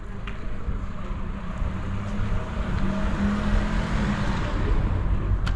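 A car going by: a steady engine hum with road noise that swells to a peak a little past halfway and then fades.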